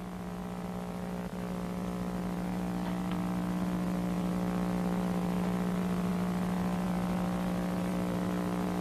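Steady hum made of a low droning tone with several evenly spaced higher tones above it, growing slightly louder over the first couple of seconds and then holding level.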